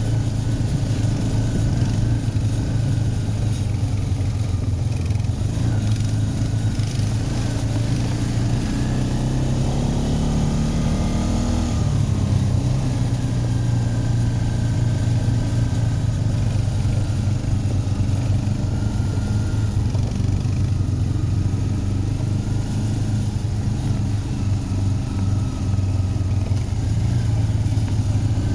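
Quad bike engine running steadily, its pitch climbing for a couple of seconds about ten seconds in and then dropping back.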